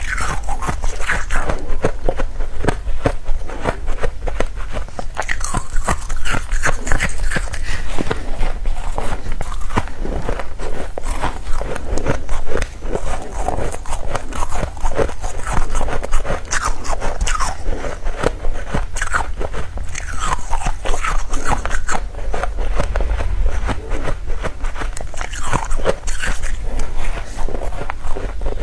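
Close-up biting and chewing of powdery freezer frost, dense, continuous crunching and crackling with no pauses.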